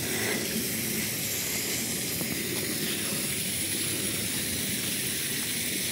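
Steady, even hiss of outdoor background noise with no distinct events, and a faint thin high tone running through it.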